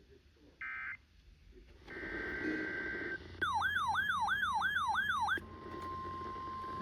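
Emergency Alert System tones. A last short data burst of the end-of-message code comes just under a second in, followed by a steady high tone. Then a loud siren-like warble sweeps up and down about three times a second for two seconds. At about five and a half seconds in it gives way to a single steady alert tone near 1 kHz, the NOAA Weather Radio warning alarm tone that opens the next alert.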